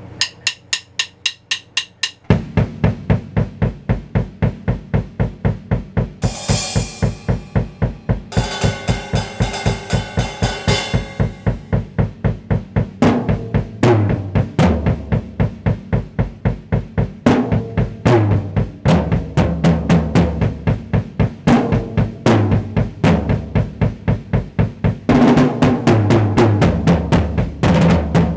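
Acoustic drum kit played as a solo: a fast, steady beat of bass drum and snare, with cymbal crashes and tom fills. It opens with a couple of seconds of quick, light strokes before the full kit comes in.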